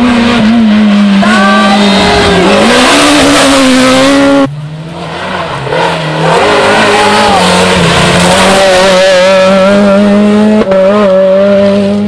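Renault Clio rally cars driven flat out on a tarmac stage, loud. The first engine's pitch drops about two seconds in as it slows for a hairpin, then climbs again. The sound cuts about four and a half seconds in to a second car whose engine builds and holds at high revs, with a quick gear change near the end.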